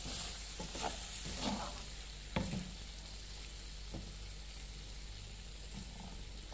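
Lamb liver and green peppers sizzling in a frying pan while a wooden spatula stirs and scrapes through them, with a few short knocks and scrapes of the spatula against the pan in the first few seconds over a steady frying hiss.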